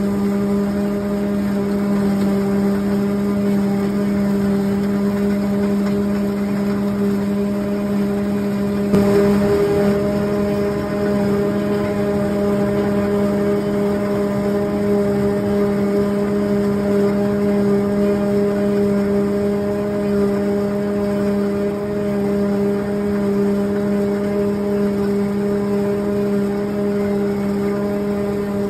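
Steady machine hum holding the same pitch throughout, with one short knock about nine seconds in.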